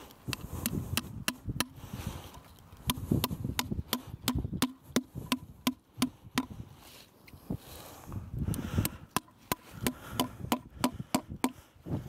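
Hammer driving nails through wooden slate battens into a timber post, a run of sharp wooden strikes about three a second. The strikes pause for a couple of seconds after about six seconds, then start again.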